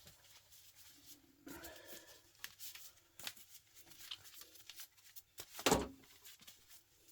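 Scattered clicks, rustles and knocks of a fluorescent light fitting and its cable being handled as it is stripped for scrap, with one sharper knock about three quarters of the way through.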